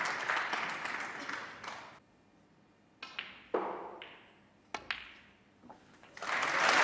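Audience applause dies away into a hush, then a few sharp clicks of snooker balls: the cue tip striking the cue ball and balls knocking together. Applause swells again near the end as the blue is potted.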